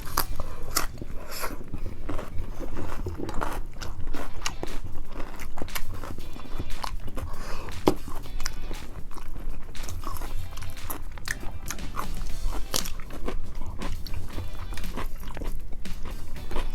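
Close-up eating sounds: repeated bites, crunches and chewing with wet mouth clicks, over steady background music.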